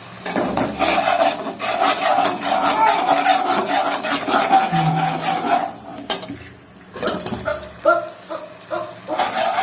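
A spoon scraping around the inside of a kadai as thick tomato pizza sauce is stirred: a fast, continuous run of rasping strokes for about six seconds, then a few lighter scrapes and taps.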